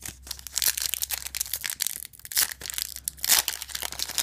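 A Yu-Gi-Oh booster pack's foil wrapper being crinkled and torn open, a dense run of crackling with a few sharper crackles about two and a half and three and a half seconds in.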